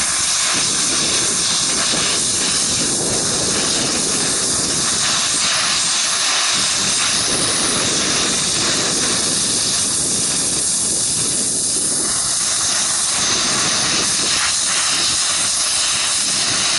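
Gas welding torch flame hissing steadily while it melts a puddle along a steel joint, with no filler rod being added.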